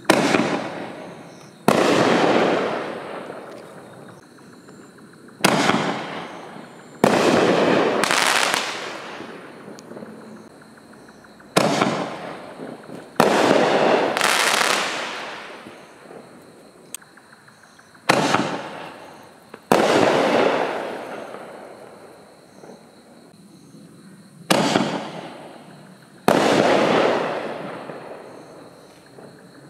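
Consumer artillery shells fired one after another from a mortar tube: each goes off with a sharp launch bang, then bursts with a louder report about a second and a half later, echoing and fading over a few seconds. Five shells go up, about six seconds apart.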